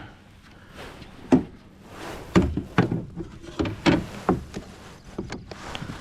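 A series of irregular knocks and thumps on a kayak, about a dozen in all, the sharpest about a second and a half in and again around two and a half and four seconds in.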